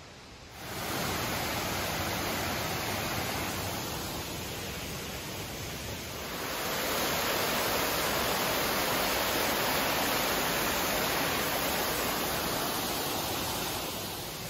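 Water rushing over a small dam and down a rocky cascade on a river, a steady hiss that comes in about half a second in and grows louder about halfway through.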